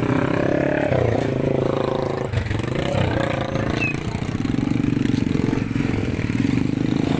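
Small motorcycle engine running while the bike rides along, its engine note shifting in pitch a few times.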